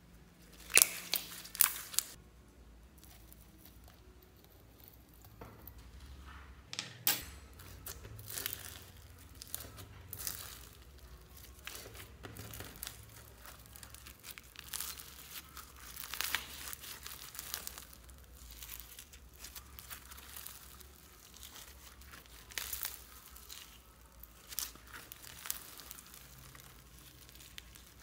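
Slime being stretched and squeezed by hand, first clear glitter slime and then white foam-bead slime (floam), giving irregular crackling and sharp pops, with the loudest pops in the first two seconds.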